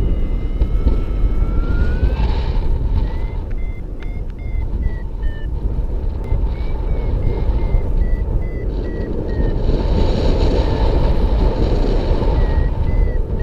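Paragliding variometer beeping in short pitched beeps, a few a second, the pitch stepping up and down, after a smooth rising tone in the first couple of seconds; the beeping signals the glider climbing in rising air. Heavy wind rushes on the microphone throughout.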